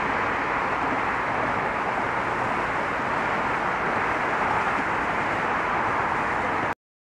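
Steady, even noise of road traffic: cars and their tyres running over a bridge deck. It cuts off suddenly near the end.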